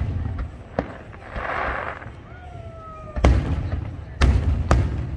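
Aerial fireworks shells bursting overhead: a smaller bang about a second in, then three loud booms in the second half, each trailed by a low rumbling echo.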